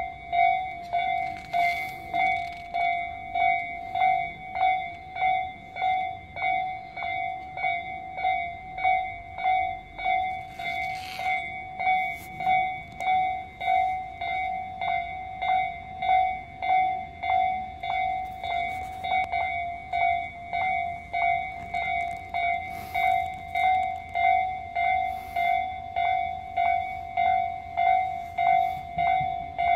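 Japanese railway level-crossing alarm ringing steadily: an electronic clang repeated evenly, a little more than once a second.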